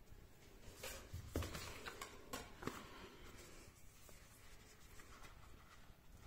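Gloved hands handling a plastic warranty card and a paper booklet: several faint clicks and taps between about one and three seconds in, then soft rustling.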